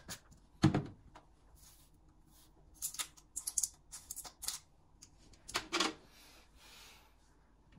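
Kitchen utensils and dishes being handled: irregular clicks and clinks, with a heavier knock about a second in and another pair just before the six-second mark.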